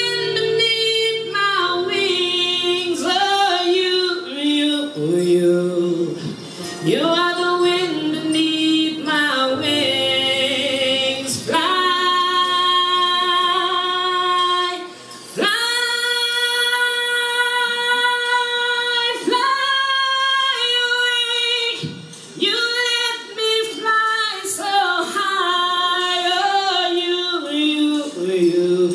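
A woman singing into a microphone, moving between notes and holding several long ones, with two short pauses for breath.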